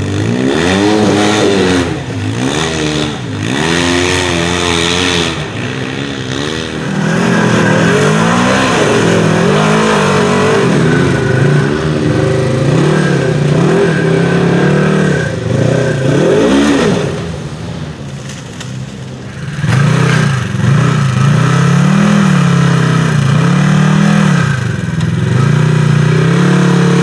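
Off-road side-by-side engine revving up and down in repeated throttle blips as it crawls up a steep rocky climb, the pitch rising and falling about once a second, with a brief lull about two-thirds of the way through.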